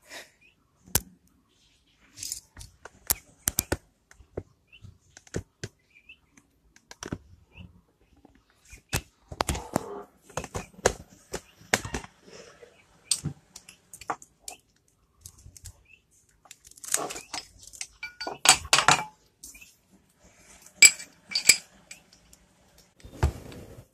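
Irregular sharp metallic clicks and clinks of a motorcycle lock being handled and fitted against the bike, with a denser, louder cluster of clinks past the middle.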